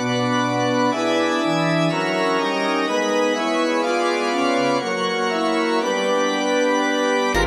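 Slow background music played on an organ-like keyboard: sustained notes and chords, each held about a second before moving to the next.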